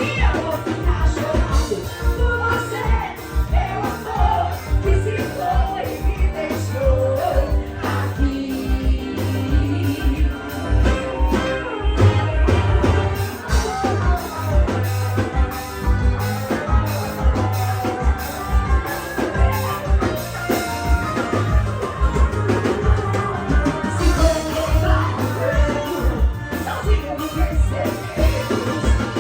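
Live forró band music, loud and steady, with a fast, regular drum and bass beat under a melody and singing.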